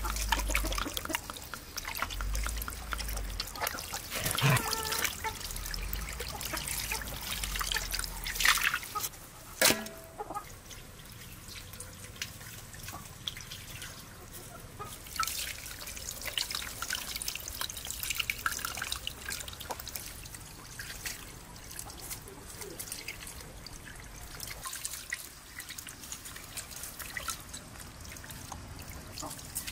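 Water poured from a clay jug trickling and splashing over raw whole chickens in a metal basin as they are rubbed and washed by hand, with wet handling noises and a few sharp knocks about a third of the way in.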